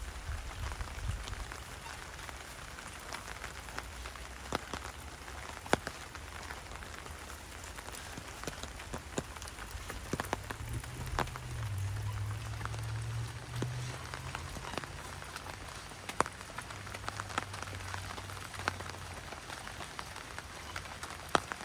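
Steady rain falling on an open umbrella, with scattered heavier drops ticking sharply on it at irregular moments.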